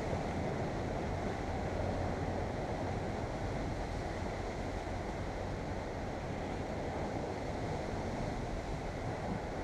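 Sea surf washing against shoreline rocks, a steady rush of water, with wind buffeting the microphone.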